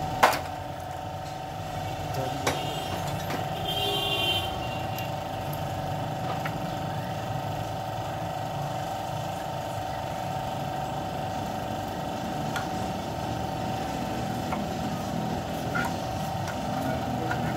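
A sharp metal clank just after the start and another about two and a half seconds in, then a few faint clinks, as hand tools work on a bare engine block. Under it runs a steady mechanical hum with a fixed tone.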